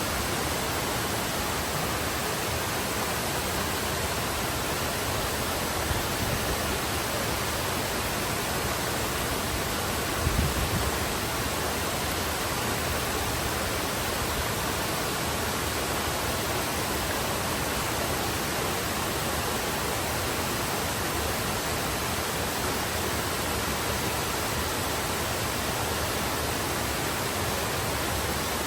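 Waterfall plunging into a pool: a steady, even rushing of water. A brief low thump breaks through about ten seconds in.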